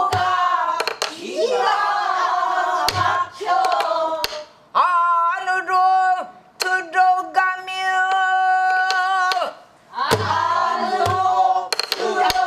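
A woman sings pansori to her own buk barrel drum, with one long held, wavering note in the middle and short breaks for breath. Sharp clacks of the drumstick and a few deep drum thumps mark the rhythm.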